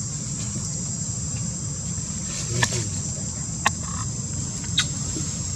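Steady high-pitched drone of a chorus of insects, such as crickets or cicadas, with a few short clicks or rustles about two and a half, three and a half and five seconds in.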